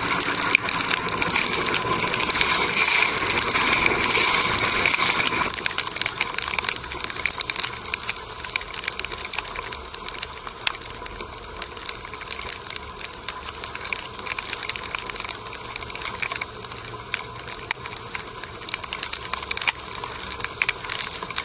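Heavy rain pelting a car's roof and windshield, heard from inside the car as a dense patter of drops. A louder hiss for the first five seconds or so then eases.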